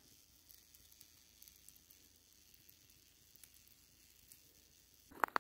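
Faint sizzle and crackle of a campfire of fir wood with a trout cooking over it, with a couple of sharp clicks near the end.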